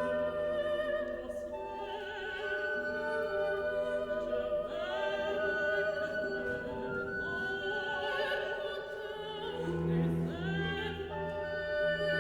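Classical music: an operatic voice singing over an orchestra, with long held notes and a deep sustained note entering near the end.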